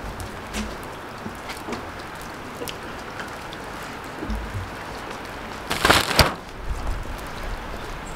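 Light rain pattering steadily on wet stone paving and bare ground, with scattered drop taps. About six seconds in comes a brief, louder rustling noise.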